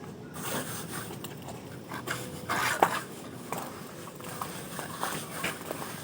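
Plastering trowel scraping and tapping on cement render: irregular short scrapes and clicks, with a louder scrape about two and a half seconds in.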